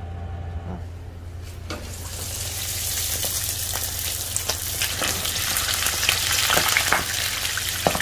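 Frogs deep-frying in hot oil: a sizzle that swells from about two seconds in, with sharp pops and crackles scattered through it, which the cooks put down to the frogs' eggs bursting.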